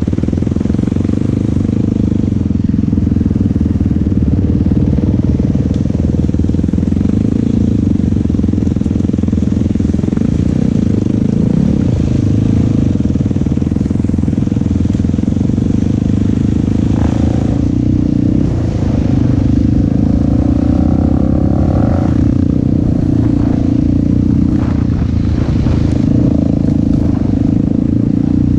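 Yamaha YFZ450 quad's single-cylinder four-stroke engine running steadily under a rider, with little change in pitch. A few knocks sound in the second half.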